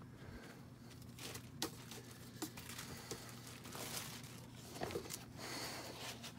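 Faint rustling and crinkling of plastic wrapping and cardboard being handled, with scattered light clicks and taps, over a faint steady low hum.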